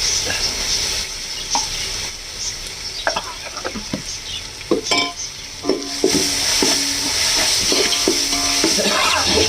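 Onions, mint and ginger-garlic paste sizzling in hot oil and ghee in a pot, stirred with a ladle that scrapes and knocks against the pot. The sizzle drops back in the middle and picks up again about six seconds in.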